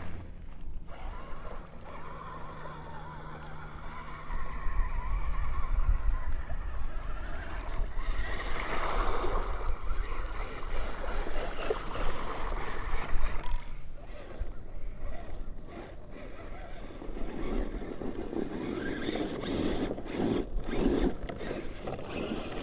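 Radio-controlled crawler truck's electric motor and drivetrain whirring on and off as its tyres scrabble over rocks, the truck hung up on its body and failing to climb the obstacle.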